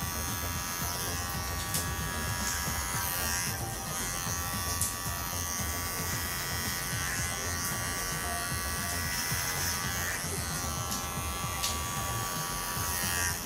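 Wahl Bravura hair clipper with a freshly sharpened Wahl 5-in-1 blade, running with a steady electric buzz as it cuts hair at the back of the neck.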